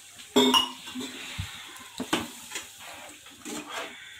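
Steel slotted spoon stirring watery masala gravy in a pot, clinking against the pot's side a few times, the loudest knock about half a second in.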